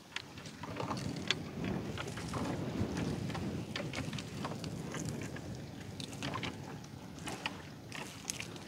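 A wet fishing net is being pulled by hand into a small boat: scattered clicks and knocks over a low, steady rumble of water and hull.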